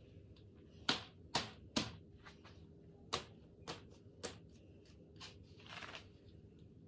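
Six sharp clicks from objects being handled: three in quick succession about a second in, three more a few seconds later, then a brief rustle near the end.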